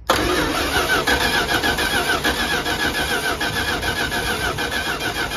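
Old Dodge pickup's carbureted V8 running at idle, steady and even with a regular pulse; it sounds all right.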